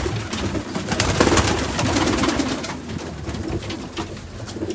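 Domestic pigeons cooing in a loft, with many short rustles and knocks, busiest in the first three seconds.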